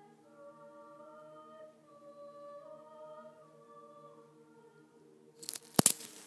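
A large choir singing slow, held chords that change only a few times. Near the end a sudden, loud crackling rustle right at the microphone drowns out the singing for about half a second.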